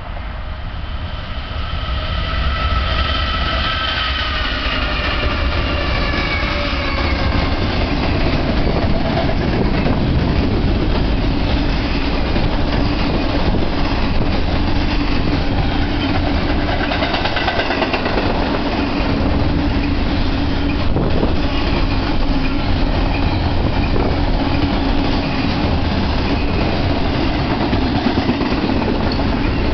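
BNSF double-stack intermodal freight train passing at close range. For the first several seconds the lead locomotive's horn sounds a chord of several notes, dropping in pitch as it goes by. Then the long run of stack cars gives a loud, steady rumble with wheel clatter on the rails.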